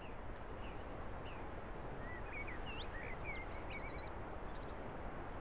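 Faint outdoor ambience: a steady background hiss with short, high chirps and warbles of a small songbird scattered through the middle.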